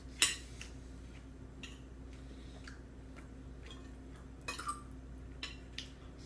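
A child's plastic spoon knocking and scraping in a metal-lined bowl: one sharp clink about a quarter second in, then a few lighter taps near the end, over a faint steady hum.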